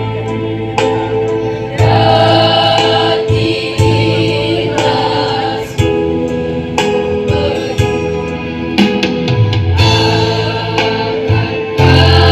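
A choir singing in parts over an instrumental accompaniment with a strong, sustained bass line. The voices swell in about two seconds in.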